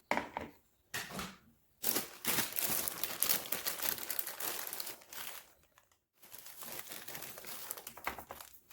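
Plastic bag crinkling and rustling as marshmallows are handled, in a few short bursts at first and then almost without a break, stopping briefly about six seconds in.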